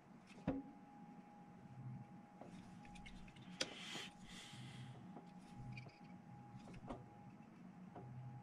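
Faint clicks and taps from a paintbrush and painting handle being worked, with a soft rustle lasting about a second around four seconds in as the brush is wiped on a paper towel, over a low steady hum.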